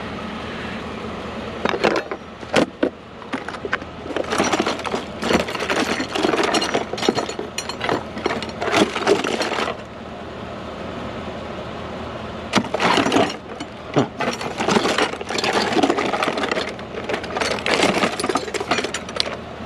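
Discarded household items being handled and rummaged through: repeated knocks, clatters and rattles in two long spells, with a quieter pause about halfway through, over a steady low hum.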